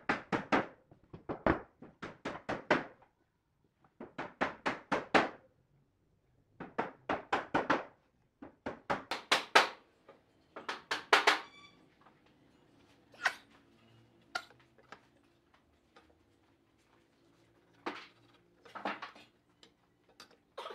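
Wooden boards set down and shifted on a workbench: short runs of quick hollow knocks and clatter, wood on wood, about five runs in the first half. Later come only a few fainter single taps.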